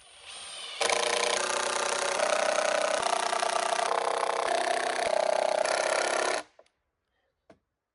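Cordless impact driver driving a screw into a wooden framing board: the motor spins up quietly, then the hammering kicks in about a second in and runs steadily for about five and a half seconds, its pitch shifting in steps, before it stops suddenly.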